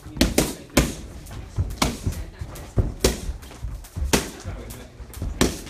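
Boxing punches landing on focus mitts: sharp smacks in quick, irregular combinations, about ten over the stretch, some coming in fast pairs.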